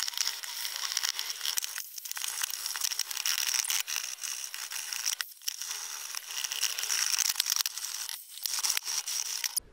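Scouring pad scrubbing soapy burnt-on grease off the bottom of a metal frying pan: a steady rasping scrub, broken by short pauses about two, five and eight seconds in.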